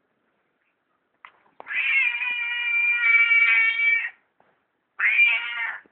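A domestic cat meowing twice: one long drawn-out meow of about two and a half seconds, then, a second later, a shorter one.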